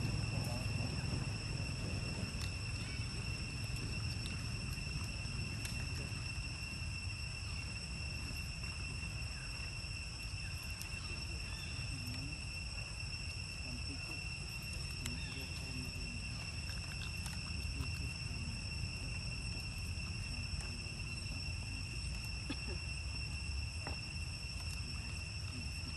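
Steady, high-pitched insect drone that holds one unchanging pitch, over a low outdoor rumble with a few faint ticks and rustles.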